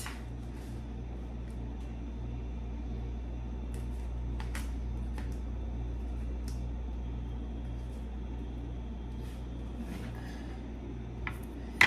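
A steady low kitchen hum, with a few faint taps and scrapes of a metal spoon packing fried rice into a bowl and one sharper tap near the end.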